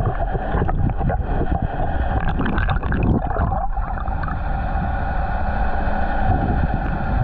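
A boat motor runs steadily with a hum that holds a constant pitch, under wind on the microphone. For the first three seconds or so, irregular water splashing and sloshing sits over it, then the motor runs on alone.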